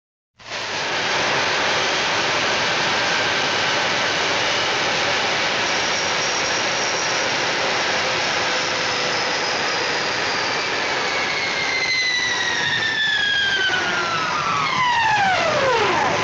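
Jet-engine-like roar with a high whine that slides down in pitch, slowly at first and then steeply near the end.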